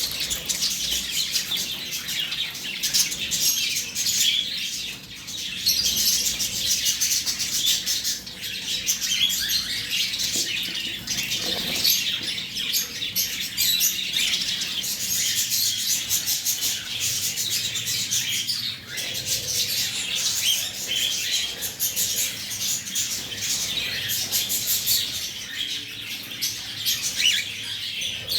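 Caged pet birds (lovebirds, a green-cheeked conure and Java finches) chirping and chattering without pause, a dense run of short high calls.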